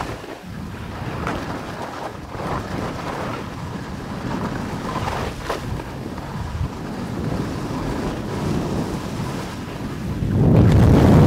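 Wind rushing over the microphone of a camera carried in a fast downhill run on snow, with the scrape of edges sliding on the snow; the rush grows louder about ten seconds in as speed builds.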